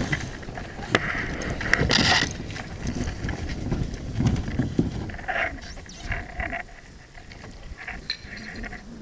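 American bison moving about on sand: irregular scuffing hoof steps and pawing, with a couple of sharp knocks near the start, growing quieter toward the end.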